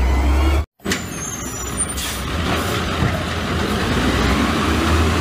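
Garbage truck diesel engine running steadily. It cuts out for an instant under a second in, then another garbage truck's engine continues.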